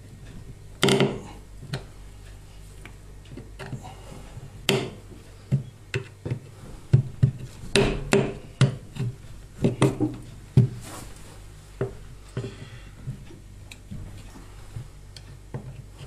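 Two screwdrivers prying and scraping at a grease-packed washing-machine bearing housing stuck in the plastic tub, making irregular sharp clicks and knocks of metal on plastic. The housing is being levered back out because it went in wrong and resists.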